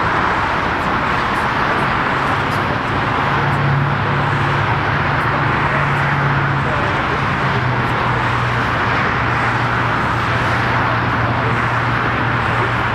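Steady rushing jet noise of an Airbus A320neo's CFM LEAP-1A engines at taxi idle, heard across the airfield. A low hum underneath steps down slightly in pitch about midway.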